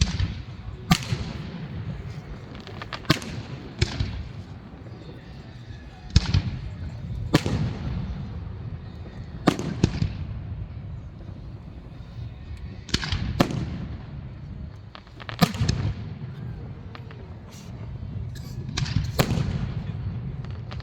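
Aerial fireworks shells bursting overhead: a string of sharp bangs every one to two seconds, each followed by a reverberating rumble, with crackle between them.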